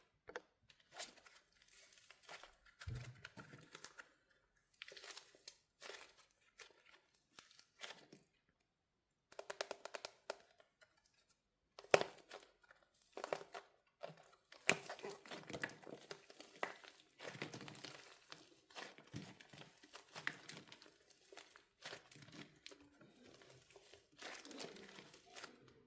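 A wax coating cracking and crunching as a wax-covered soft soap squishy is squeezed. The crackles come in scattered clusters, with a short pause about a third of the way in and a single sharp crack near the middle. The crackling is denser through the second half.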